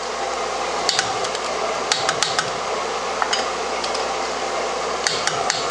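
Torque wrench giving wheel bolts their final tightening: several sharp metallic clicks at irregular intervals over a steady background hiss.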